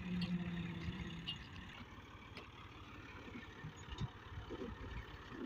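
Massey Ferguson 240 tractor's three-cylinder diesel engine running steadily at low revs while towing a heavily loaded trailer, a little fainter after the first second or so.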